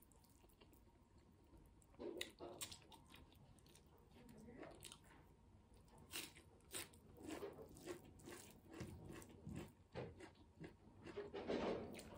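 Close-up mouth sounds of a person chewing and crunching mouthfuls of maize rice with fried kinema (fermented soybean) and dried meat. The sound is a quiet run of wet clicks and crunches that starts about two seconds in and is loudest near the end.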